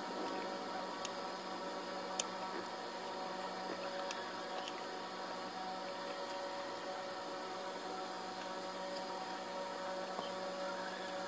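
Steady electrical hum made of several fixed tones over a faint hiss, with a few faint clicks, the clearest about two seconds in.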